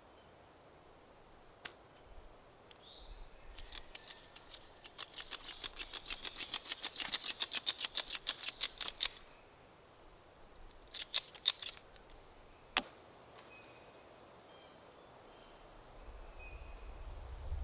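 Hand tool working a timber sill plate: a quick run of short scraping strokes, about five a second for some four seconds, with a few single sharp knocks before and after.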